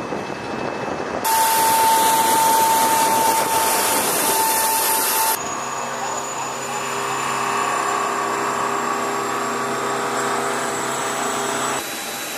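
Turbine noise of a C-17 Globemaster III on the ramp: a loud rushing hiss with a steady high whine starts about a second in, then gives way about five seconds in to a lower, steady humming drone, which drops away shortly before the end.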